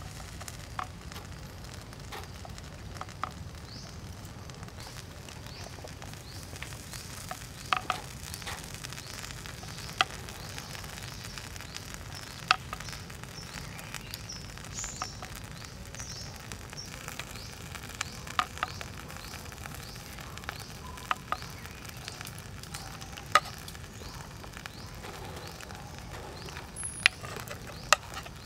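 Crabs sizzling in their shells on a wire grill over charcoal as sauce is spooned into them, with scattered sharp clicks and pops at irregular moments.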